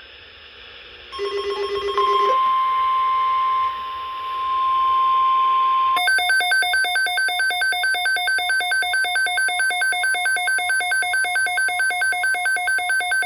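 Midland WR-400 weather radio sounding an alert for an incoming NOAA Weather Radio watch broadcast: a brief buzzy pulsing tone, then a steady single-pitched warning tone for about four seconds, then fast electronic beeping at about four beeps a second.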